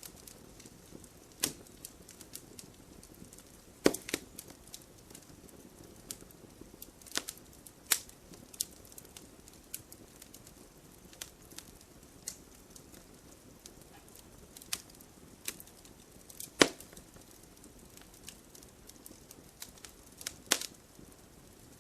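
Firewood burning, crackling and popping at irregular intervals over a soft hiss, with a few louder pops.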